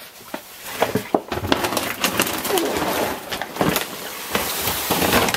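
Large plastic bag of dry dog food rustling and crinkling as it is handled and dragged across a wooden floor, with many short crackles throughout.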